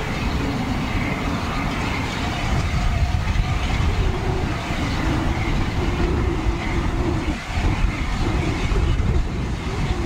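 Steam train running on the line, with strong wind buffeting the microphone and a low rumble throughout.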